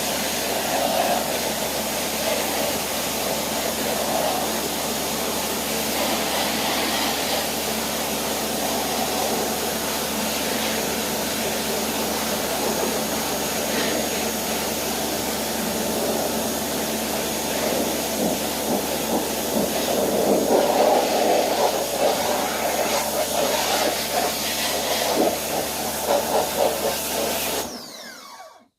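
Pressure cleaner running steadily, its water jet spraying against an aluminium-flywire screen door, with a steady motor hum under the hiss of the spray. The sound dies away and cuts out near the end.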